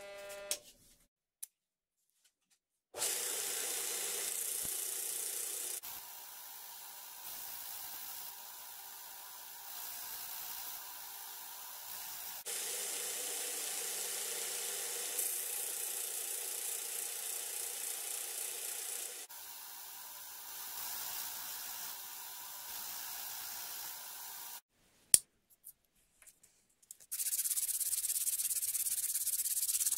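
Belt grinder running, its sanding belt hissing as it grinds a steel shuriken, in several cut-together stretches that change level. After a short pause with a sharp click near the end, a different hissier sanding sound starts.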